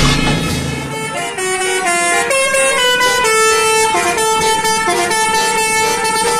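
Bus telolet horn, a Basuri multi-tone air horn, playing a quick tune. From about a second in the notes change every fraction of a second, several tones sounding together in each.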